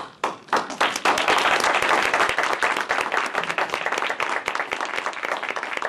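Audience applauding: a few scattered claps that build into full applause about a second in, then carry on steadily.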